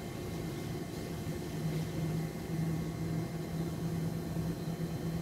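Elizabeth line Class 345 electric train approaching slowly: a steady low electrical hum over a faint hiss, growing a little louder about a second and a half in.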